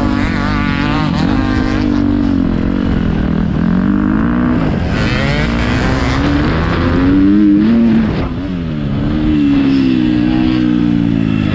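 Motocross bike engine being ridden hard, its revs rising and falling repeatedly with the throttle. The revs climb to a peak about seven and a half seconds in, then briefly drop off.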